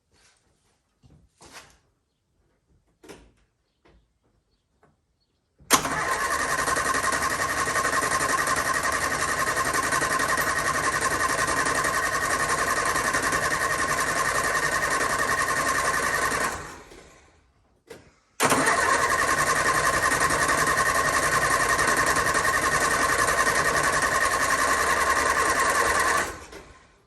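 Classic Mini's BMC A-series engine being cranked on its starter motor in two long bursts, about 11 s and then about 8 s, each starting abruptly and winding down at the end. The engine, laid up and just given fresh oil and fuel, is being tested to see whether it will turn over and fire. Faint clicks come before the first crank.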